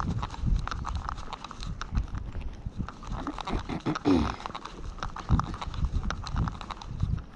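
Footsteps on a wet asphalt lane, about two steps a second, each landing a soft thud with a gritty scuff. A short sliding tone cuts in briefly about four seconds in.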